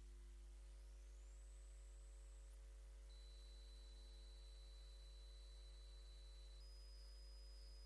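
Near silence: a steady low hum with faint, thin, high-pitched steady tones that shift in pitch a few times.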